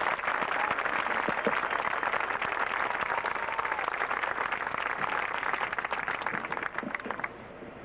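Stadium crowd applauding, many hands clapping at once, dying down about seven seconds in.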